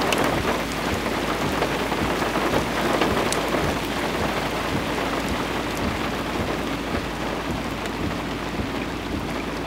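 Steady rain during a thunderstorm: a dense hiss with many small drop ticks and a low rumble beneath it.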